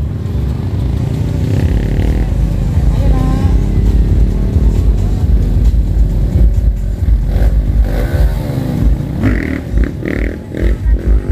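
Off-road trail motorcycle engines running, with revs that rise and fall, and people's voices mixed in.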